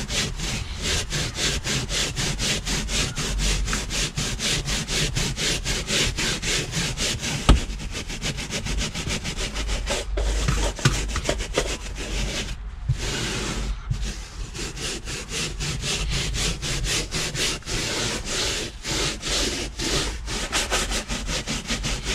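Stiff-bristled hand scrubbing brush scrubbed back and forth over damp car carpet to work in fabric cleaner, in quick even strokes of about four a second. Near the middle it pauses briefly and then makes one longer sweep.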